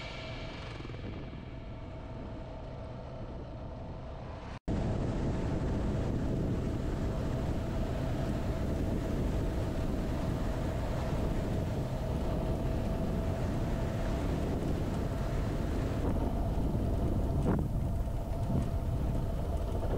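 Suzuki DR650 motorcycle's single-cylinder engine running steadily while ridden along a dirt road, with wind noise on the microphone. The sound jumps louder at a cut about four and a half seconds in.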